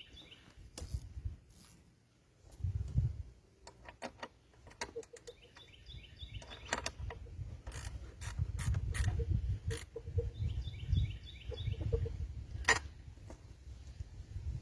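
Scattered clicks and knocks of hand work with tools and wood, over a low rumble, with no power tool running. A bird sings a short phrase of rapid high notes twice, about six and eleven seconds in.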